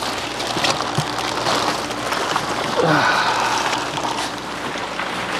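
Plastic fish-shipping bags rustling and crinkling as they are handled and lifted out of a styrofoam box.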